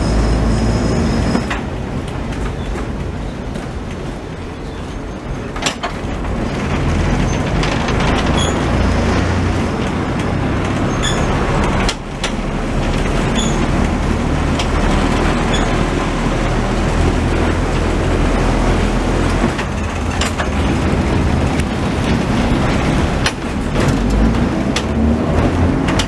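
Vintage heritage tramcar running on street rails, heard from inside the cab: a steady low rumble of wheels and motors with occasional sharp knocks. Near the end a motor whine rises as the tram picks up speed.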